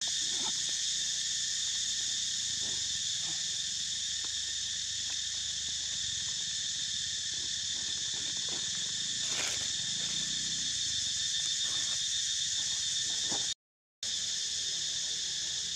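Steady, high-pitched buzzing drone of a tropical forest insect chorus, unbroken and even in level, which cuts out for a moment near the end.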